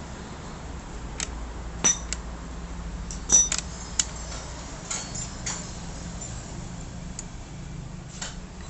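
Small metal engine parts clinking and tapping against each other as they are handled, about a dozen sharp clinks with a short ring, the loudest about three and a half seconds in, over a low steady hum.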